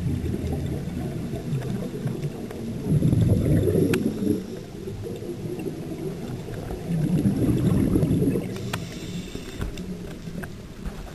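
Scuba divers' exhaled regulator bubbles heard underwater: a low bubbling rumble that swells into two louder surges, about three and seven seconds in, with a couple of sharp clicks.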